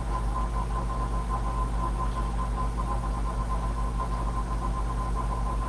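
Steady background hum and hiss with a thin, steady whine above it, unchanging throughout; no speech.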